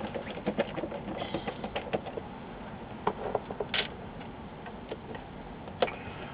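Light clicks and taps of a screwdriver and plastic parts being handled on the back of an LCD monitor: a quick run of small clicks in the first two seconds, then a few louder taps around three and a half seconds in and once more near the end.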